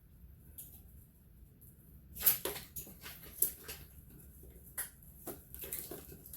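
Irregular clicks and clacks of motorcycle parts being handled, from disconnecting the gauge and sensor connectors during a teardown. The clicks start about two seconds in, several close together and then more spread out.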